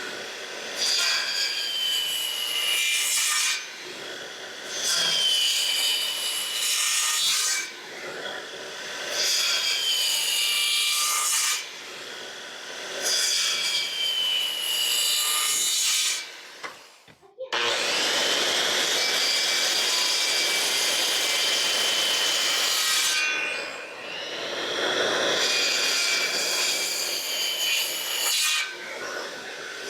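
Saw cutting through wood in a series of separate cuts. Each cut is a burst of a few seconds with a whine running through it, separated by short pauses, with one longer cut in the middle.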